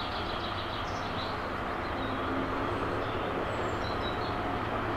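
Distant locomotive approaching along the track: a steady low running noise with a hum, growing slightly louder about two seconds in.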